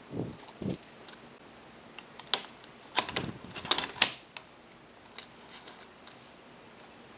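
Plastic puzzle cube pieces clicking and clattering as they are handled, with a cluster of sharp clicks in the middle, loudest about four seconds in. Two soft low rubs in the first second.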